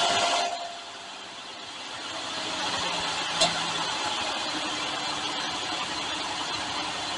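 2005 Ford Escape's engine, just started, drops from its loud start-up to a steady idle about half a second in. There is one sharp click about three seconds in.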